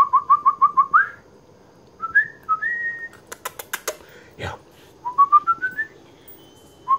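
A person whistling to the puppies in quick runs of short notes. The first run holds one pitch, and later runs climb step by step. About three seconds in comes a quick run of sharp clicks.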